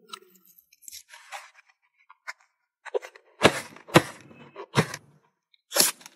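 Close-up handling noises from a rubber balloon and scissors: soft rustles at first, then four sharp, loud crackling snaps in the second half. The last snap, near the end, comes as the scissor blades close on the balloon's rubber tip.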